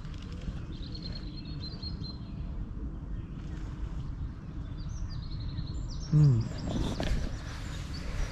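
Outdoor lakeside ambience: a steady low rumble with small birds chirping in short high phrases. About six seconds in, a single loud short call falls in pitch.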